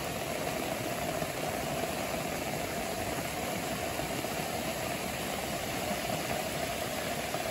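Steady rushing of a fast-flowing stream pouring over a low weir.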